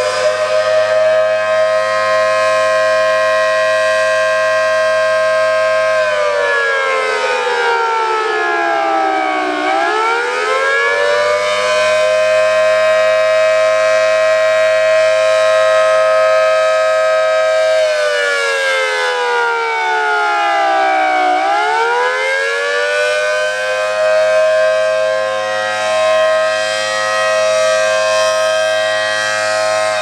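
ACA Allertor 125 10/12-port rotating siren sounding the attack signal, loud: a steady high tone held for about six seconds, then falling in pitch and climbing back up, twice, with the pitch starting to fall again at the end.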